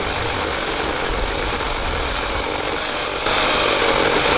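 Kobalt 40-volt cordless electric pole saw running, its chain cutting into a sapling. The sound grows louder and harsher about three seconds in.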